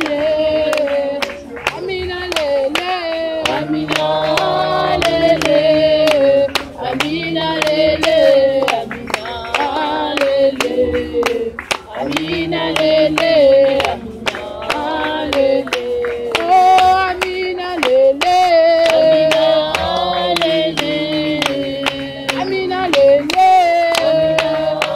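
A woman singing a worship song without instruments, her voice holding long, sliding notes, with steady hand clapping keeping the beat at about two claps a second.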